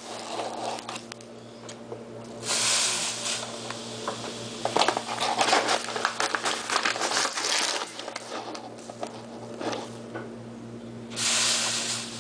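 Granulated sugar pouring through a paper funnel into a plastic bottle: a rustling hiss that surges louder twice, about two and a half seconds in and again near the end, with crackling and rustling in between.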